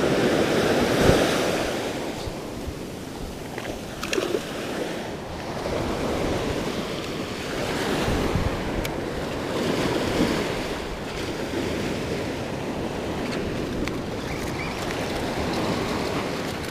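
Small surf breaking and washing up a sandy beach, swelling and ebbing every few seconds, with wind buffeting the microphone.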